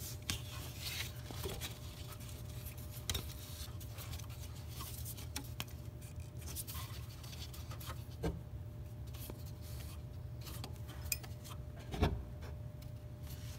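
Faint rubbing and small clicks of a rubber accessory belt being worked by hand around the engine pulleys, with a few light knocks against metal, over a steady low hum.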